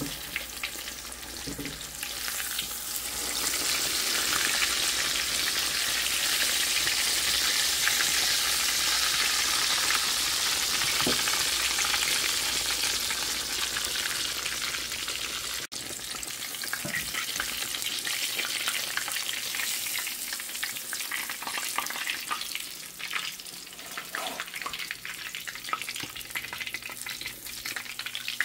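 Breaded fish fillets frying in hot oil in a skillet: a dense sizzling hiss, loudest in the first half. After a brief break about halfway through, the sizzle is quieter, with scattered crackles and pops.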